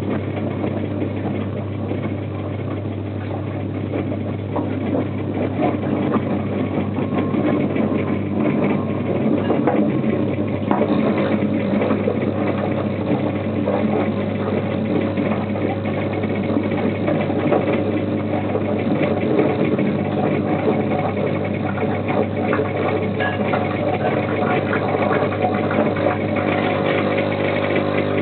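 Small 35 W electric air compressor running steadily with a low hum while pumping air into a 30-litre beer keg; the hum grows a little louder after several seconds.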